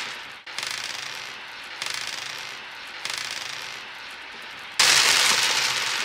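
Four bursts of quick crackling rattle, like a shower of small objects landing. Each starts suddenly and dies away over about a second, and the fourth, a little before the end, is the loudest. It is an added effect timed to the pom-poms tumbling onto the table.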